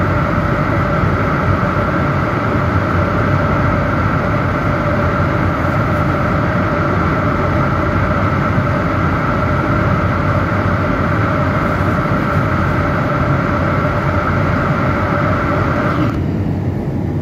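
Airliner cabin noise at cruise: a steady rush of airflow with a constant engine hum. About a second before the end, the higher part of the hiss drops away.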